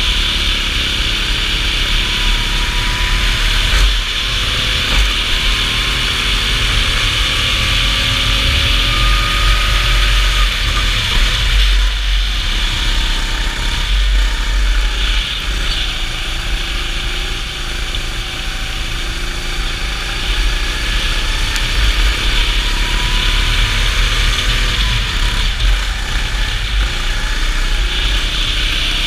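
Go-kart engine heard on board, rising in pitch as it accelerates and dropping off about twelve seconds in before picking up again, with a heavy low rumble underneath.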